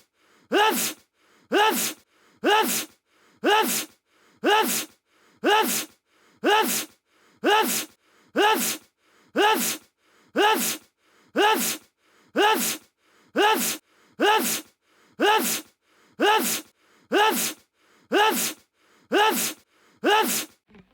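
A sneeze sound effect repeated over and over at an even pace of about one a second. Each is a short intake followed by a louder burst, the same sneeze looped.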